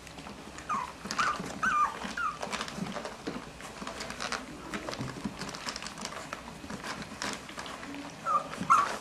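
Three-week-old Cavalier King Charles Spaniel puppies whimpering in short, high squeaks while nursing: a run of four in the first couple of seconds and two more near the end. Between the squeaks come many small clicks and rustles as the puppies suckle and shuffle.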